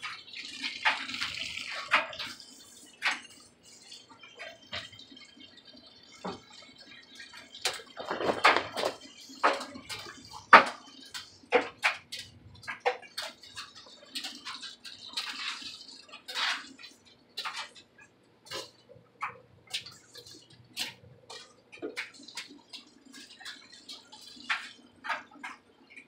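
Clothes being sorted and dropped into a top-loading washing machine: fabric rustling and many light knocks and clicks, over a steady low hum and water running into the tub.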